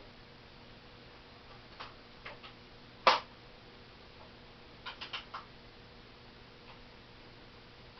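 Crosman 790 Outbacker single-pump .177 pellet rifle being worked and fired: a few light clicks, one sharp crack of the shot about three seconds in, then a quick run of four clicks near five seconds.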